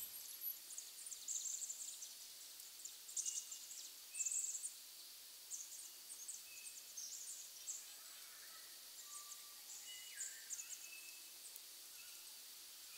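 Faint woodland ambience: small birds giving scattered short, high chirps, with a few brief whistled notes and one falling whistle about ten seconds in.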